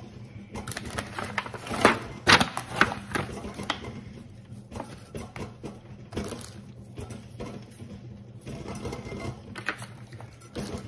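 Hands handling and rubbing seasoning into a raw whole chicken in a disposable aluminium foil pan: irregular crinkling and clicking of the thin foil, loudest about two seconds in, over a low steady hum.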